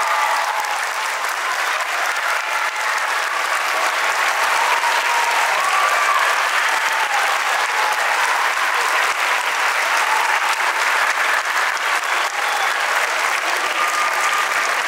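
Audience applauding steadily, with a few voices cheering over it.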